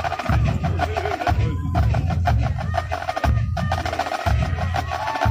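Marching drum line of snare, tenor and bass drums playing a steady cadence, with rapid snare strokes over a pulsing bass-drum pattern.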